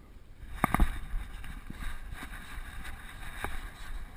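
Wind and handling rumble on an action camera strapped to a dog's harness as the dog moves, with two quick knocks just under a second in and a third about three and a half seconds in.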